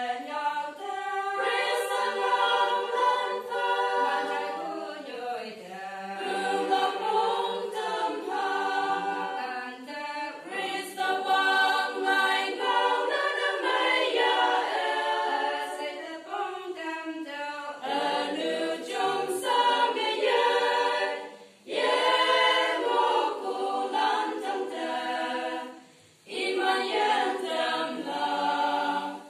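Women's choir singing a cappella, several voices together in long phrases, with two short breaks for breath late on.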